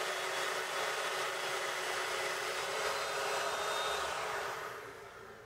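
Festool Domino DF500 joiner running as it cuts a mortise in pine, with a steady motor whine, then winding down over the last second or so after it is switched off.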